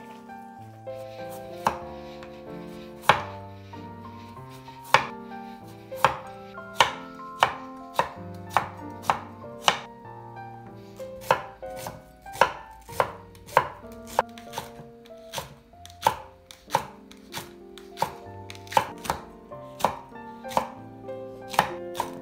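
Chef's knife chopping an onion and a green chili pepper on a wooden cutting board: sharp, irregular knocks of the blade striking the board, about one to two a second. Soft background music plays underneath.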